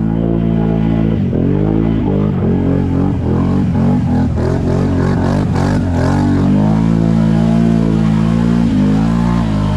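Can-Am ATV engine running under throttle. Its pitch dips and climbs back repeatedly over the first several seconds as the throttle is worked, then holds steady.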